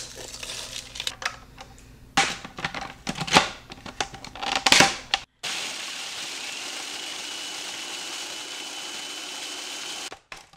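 Sugar cones being crushed by hand inside a food processor bowl, with irregular crackling and crunching. About five seconds in, the food processor motor starts and runs steadily with a high whine, chopping the cones into fine crumbs. It cuts off near the end.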